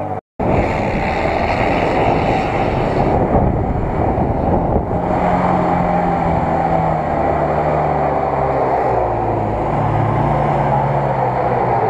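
Off-road 4x4 engine running under load through deep mud, its pitch rising and falling as the throttle changes. The sound cuts out for a split second right at the start.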